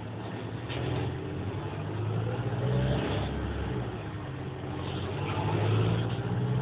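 Interior of a Volvo hybrid city bus as it drives off, its low drivetrain hum swelling as it gathers speed, loudest about three seconds in and again near the end.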